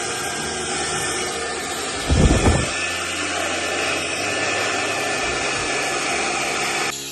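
Dyson Supersonic hair dryer with its styling nozzle fitted, running steadily: an even rush of air with a faint steady whine. About two seconds in there is a brief loud low rumble, and the dryer cuts off near the end.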